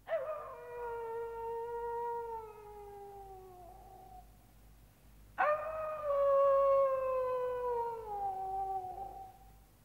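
Two long wolf howls, the second starting about five and a half seconds in. Each begins abruptly, is held for about four seconds, and slides down in pitch at the end.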